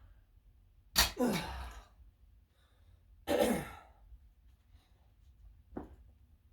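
A person grunting with effort twice, about two seconds apart, while straining through weightlifting reps. Each grunt is a sudden forceful exhale that drops in pitch. A faint short click comes near the end.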